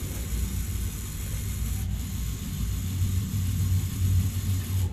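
Lego Mindstorms NXT servo motor running steadily, driving a stirrer round in a coffee mug, heard as a thin mechanical hiss over a low steady rumble.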